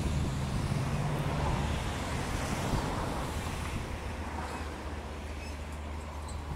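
Low steady engine hum with a rush of noise that swells and fades over the first few seconds; faint bird chirps near the end.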